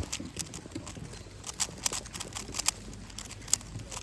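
Irregular sharp clicks and taps, several a second and unevenly spaced, over a faint low background murmur.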